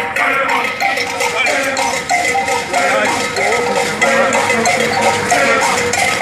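A group of joggers chanting a song together in unison as they run, over a steady rhythmic beat.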